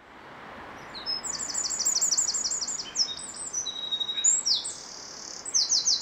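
Eurasian wren singing: fast, high trilled phrases of rapid notes, starting about a second in, over a steady hiss of background noise.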